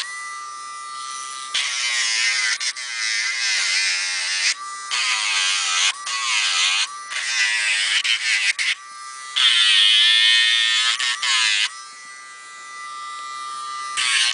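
Dremel rotary tool with a sanding drum grinding a dog's nails: a steady motor whine that dips in pitch each time the drum is pressed to a nail, with repeated bursts of gritty hiss from the nail being sanded down. Near the end it runs more quietly without load.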